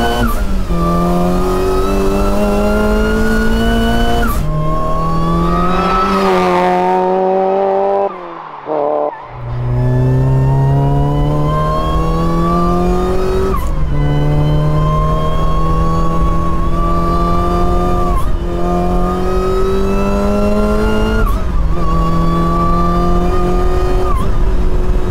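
Supercharged Mazda MX-5 Miata's four-cylinder engine being driven hard: the engine note climbs steadily under throttle and drops back several times as gears change, with a brief lift off the throttle about eight seconds in.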